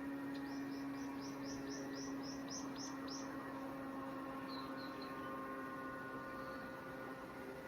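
A bird calls a quick run of about ten short falling chirps over some three seconds, then three short notes a little later. Under it is a steady low hum that slowly fades.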